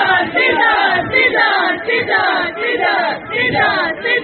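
A group of young voices shouting a slogan in unison through microphones, repeated phrase after phrase, each falling in pitch.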